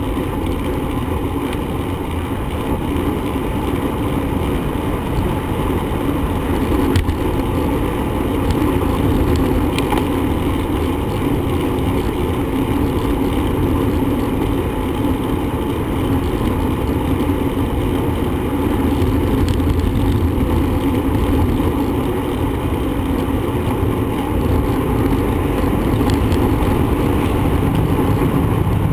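Steady rumble of wind and road noise while riding a bicycle, with two faint clicks about 7 and 10 seconds in.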